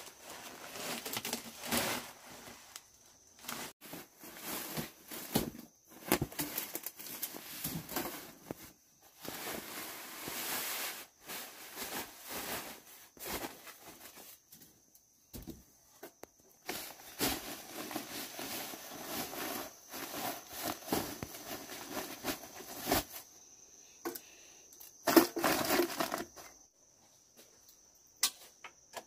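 Irregular bursts of rustling and crinkling from things being handled, stopping and starting, with the loudest burst near the end.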